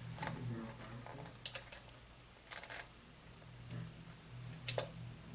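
Small parts of an RC crawler's suspension being handled on a workbench: a few sharp light clicks and taps, one quick cluster about halfway through, over a steady low hum.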